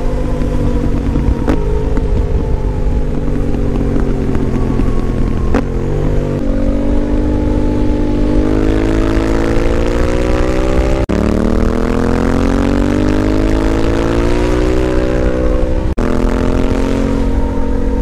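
Yamaha Ténéré 700's 689 cc parallel-twin engine, through an Akrapovic exhaust, running under way as the bike is ridden. It holds a steady note at first, then its pitch climbs from about six seconds in, drops back sharply about eleven seconds in and climbs again.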